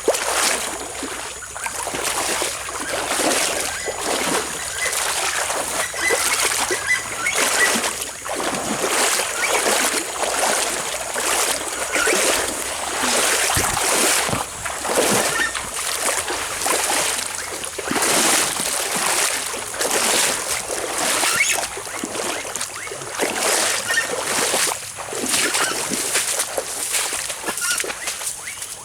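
Water splashing in a steady series of noisy strokes, roughly one a second.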